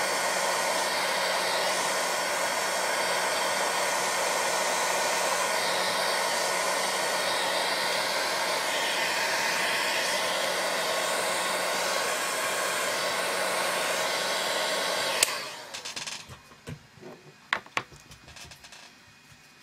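Craft heat gun blowing steadily, with a steady motor whine, drying a wet coat of crackle medium on card. It is switched off with a click about fifteen seconds in, followed by a few light knocks and taps of handling.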